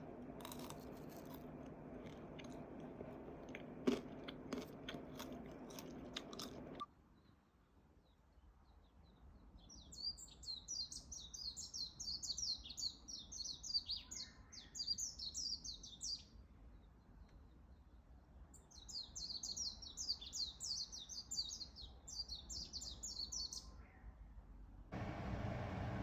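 For the first seven seconds or so, crunching with sharp clicks, like food being chewed. After a cut, a small songbird sings two long, rapid twittering phrases of high notes, each lasting several seconds.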